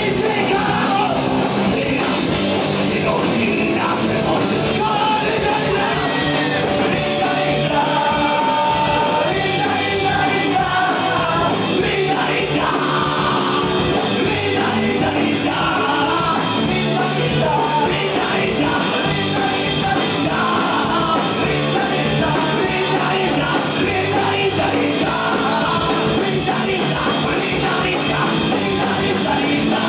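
Rock band playing live and loud: electric guitars, bass, drums and keyboard, with a singer on the lead vocal.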